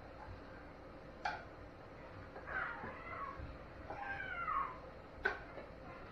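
A cat meowing twice, each call sliding down in pitch, with two sharp clicks, one before the first meow and one after the second.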